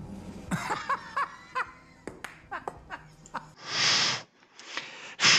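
A man laughing in short chuckling bursts, then two loud breathy exhales, one near the middle and one near the end.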